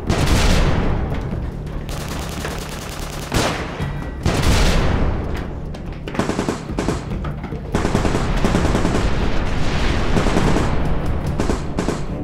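Rapid machine-gun fire with several heavy booms, layered over music.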